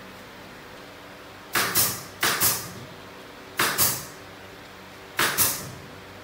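Pneumatic brad nailer firing nails into plywood bracing, four shots each a sharp double pop with a hiss of exhaust air.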